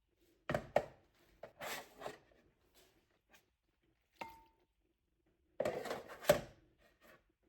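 Household handling sounds in a small room: scattered knocks and clatters, a short ringing clink about four seconds in, and a denser run of clacks around six seconds, the loudest of them near the end of that run.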